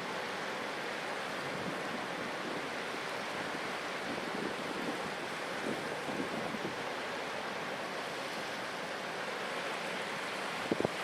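Steady wind blowing across the microphone, with a few low gusts buffeting it, the strongest near the end.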